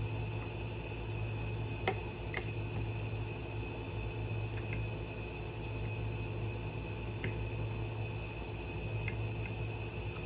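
Eating sounds: a few scattered soft clicks and mouth noises over a steady background hum.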